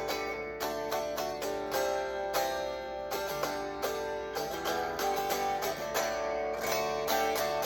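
Fender Stratocaster guitar being played, a quick run of picked notes and strummed chords, several strokes a second, with the tremolo springs exposed at the back.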